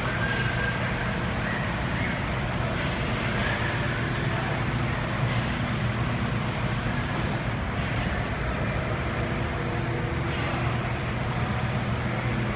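A motor vehicle running steadily with an even low hum.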